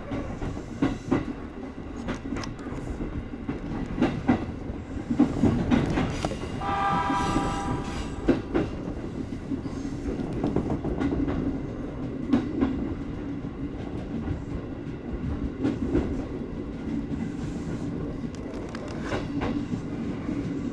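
205 series electric train running, heard from the driver's cab: a steady rumble with wheels clicking over rail joints. About seven seconds in, the horn sounds once for about a second and a half.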